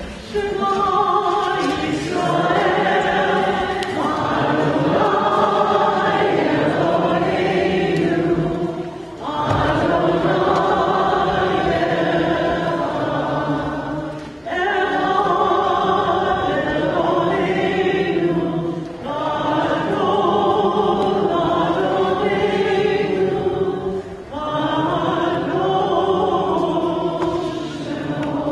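Congregation singing a Hebrew prayer together in long held phrases, breaking briefly for breath about every five seconds.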